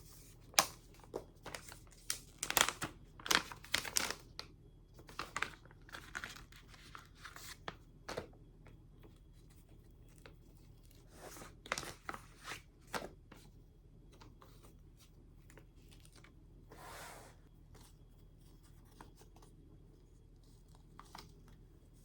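Tearing and crinkling: a run of short, quick rips. They are densest in the first eight seconds, come again around the eleventh to thirteenth second, and then thin out to a few faint rustles.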